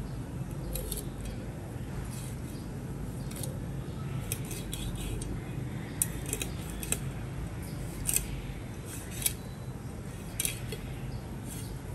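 Sharp, irregular clicks and snips of kitchen utensils being worked by hand, about a dozen over the span, over a steady low hum.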